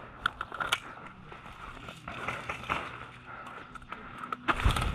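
Irregular rustling and scuffing of clothing and gear with footsteps on dry sandy ground as a player shifts behind cover, ending in a louder knock about four and a half seconds in.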